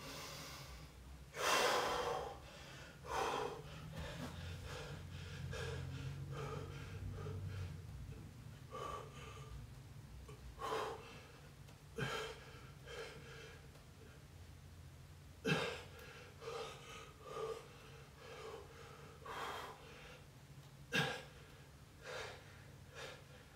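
A man breathing hard from exertion, with heavy irregular breaths every second or two. A few short sharp clicks fall among them.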